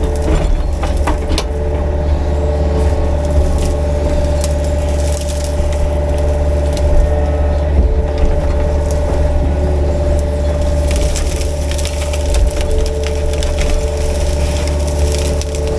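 Excavator's diesel engine running steadily, with crackling and snapping of brush and vines as the rake tears through them; the crackling is thickest in the last few seconds.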